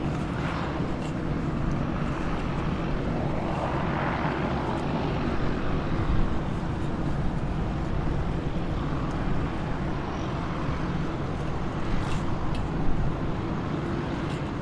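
Floatplane's propeller engine droning steadily across the water, a continuous low rumble that swells a little now and then.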